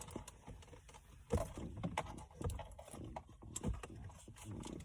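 Scattered plastic clicks and knocks as the climate control bezel in a 2016 Chrysler 200 dashboard is pried and worked loose by hand.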